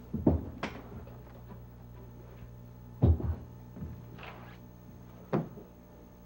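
Knocks and thumps as a metal weight can and a wooden silk-screen frame are moved about on a wooden workbench: two knocks at the start, the heaviest thump about three seconds in, and another knock about five and a half seconds in.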